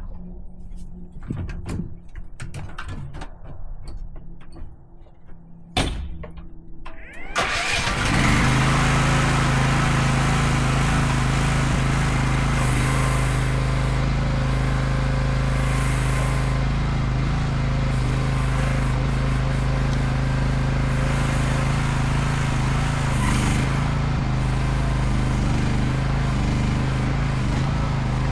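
Mini excavator engine starting about seven seconds in, after a few clicks and a sharp knock, then running steadily at an even idle.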